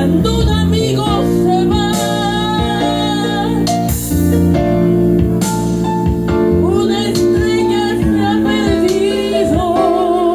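A woman singing in Spanish into a microphone, her held notes wavering with vibrato, over backing music with guitar.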